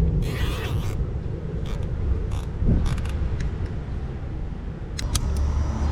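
Hands working the cable and plastic parts: a short rustle near the start and a few scattered sharp clicks, with a group of clicks near the end, over a steady low background rumble.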